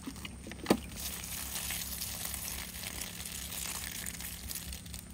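Soda running out of a bullet hole in a plastic 2-liter bottle and splashing onto grass and leaves: a steady hiss, after a short click near the start.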